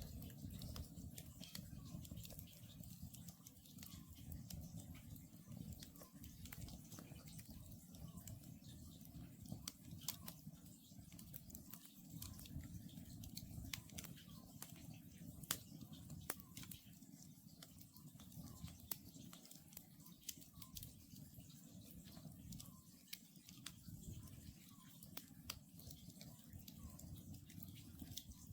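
Wood campfire crackling, with frequent sharp pops over a low steady rumble of the burning logs. An Oriental scops owl calls faintly and repeatedly.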